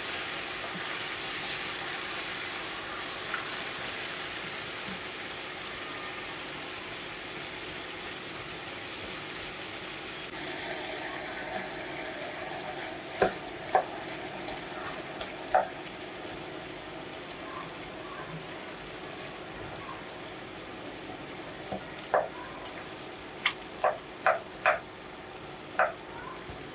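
Chicken curry sizzling and simmering in a stainless steel pot, a steady hiss broken by sharp pops of bursting bubbles and spattering gravy. The pops come a few at a time about halfway through and more often near the end.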